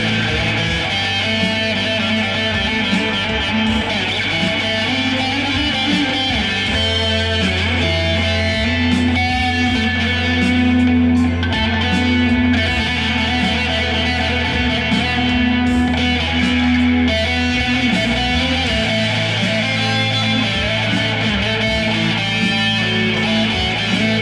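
Electric guitar played loud through amplifiers and speaker cabinets, ringing notes that sustain and overlap. Through the middle a low note is held for about ten seconds under the higher notes.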